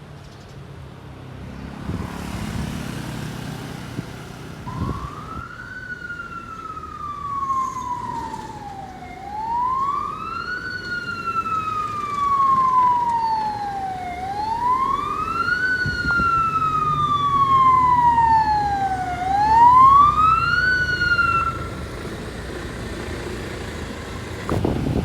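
Fire engine's wail siren sounding four slow cycles, each a quick rise then a long falling sweep, over the truck's engine running. The siren starts about five seconds in and stops a few seconds before the end.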